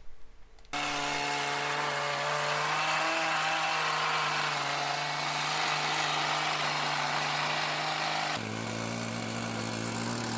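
Chainsaw running under load, cutting through timber in a chainsaw mill. It starts suddenly about a second in as a steady engine drone with a hiss of cutting over it. Near the end the tone changes abruptly and gets a little quieter.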